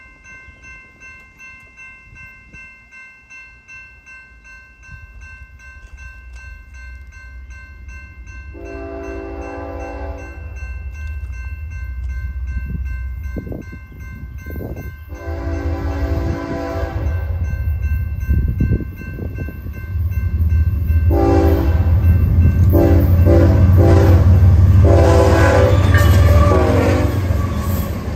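Railroad crossing bell ringing steadily while a BNSF diesel freight locomotive approaches, sounding its multi-note air horn. There are two long blasts, then a run of short blasts, over a low rumble that grows louder as the train reaches the crossing.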